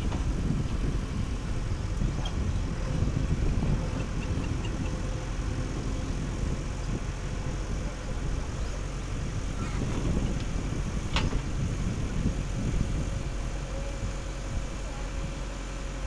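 JCB 3DX backhoe loader's diesel engine running steadily while the backhoe arm digs and swings mud into a trolley, with one sharp click about eleven seconds in.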